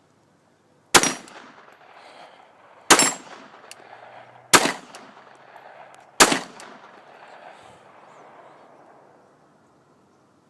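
Glock 19 Gen4 9mm pistol fired four times, shots spaced about one and a half to two seconds apart, each followed by a trailing echo that dies away.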